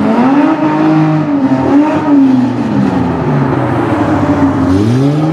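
Nissan Z sports car engine being revved, its pitch rising and falling several times and climbing again near the end.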